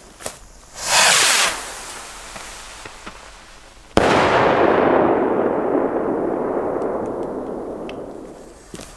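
Stick firework rocket launching with a short, loud whoosh about a second in, its hiss trailing off as it climbs. About three seconds later it bursts with a sharp bang, followed by a rumbling echo that fades away over several seconds.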